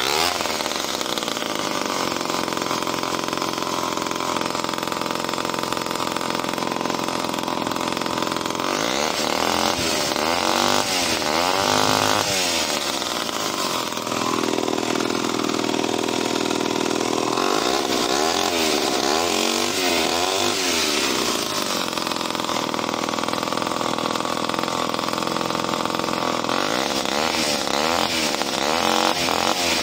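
Homelite C51 77cc two-stroke chainsaw running, very loud through its small aluminium muffler. It runs steadily and is revved up and back down a few times, about a third of the way in, around two-thirds and at the end. The owner finds this engine a tiny bit lazy on the throttle.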